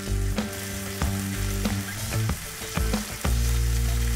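Beef tenderloin steaks and herbs frying in hot oil in a skillet: a steady sizzle with small crackles. Background music with low held chords plays under it.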